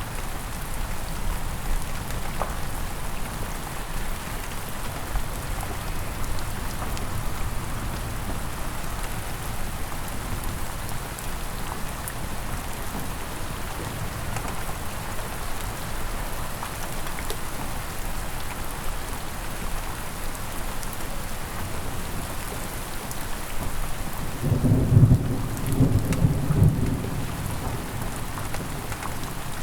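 Steady rain falling, with a loud rumble of thunder about twenty-five seconds in.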